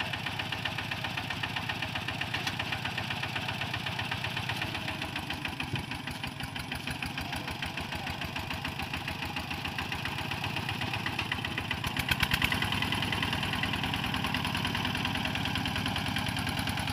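Single-cylinder diesel engine of a two-wheel walking tractor running with a steady, rapid pulsing beat while it pulls a loaded trailer through mud. About twelve seconds in, a short, louder run of knocks rises over the engine.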